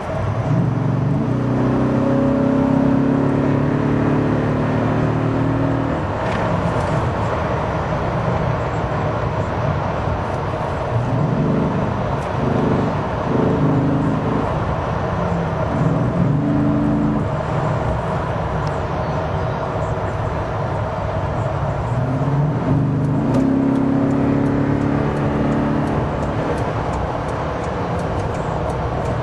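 Toyota Tundra's 5.7-litre V8 running through a Volant aftermarket air intake while driving. The engine note swells three times as the truck accelerates and eases off in between, over steady road noise.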